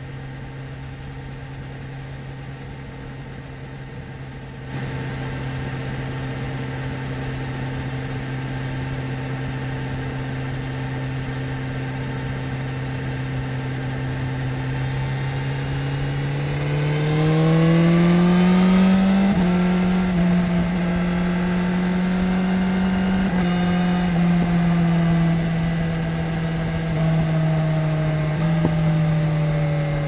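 2017 BMW S1000RR's inline-four engine, first running at steady revs while cruising, then rising in revs and getting louder from about fifteen seconds in as the bike accelerates. It holds the higher revs for a few seconds and then eases off slowly near the end.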